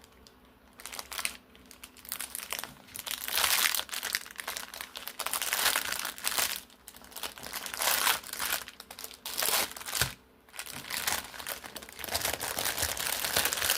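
Packaging bag crinkling and rustling in irregular bursts as it is handled and opened. It is quiet for the first couple of seconds, with a brief pause near the end.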